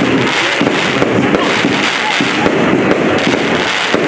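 Aerial fireworks bursting overhead in quick succession: a loud, continuous crackle of many rapid pops with no break.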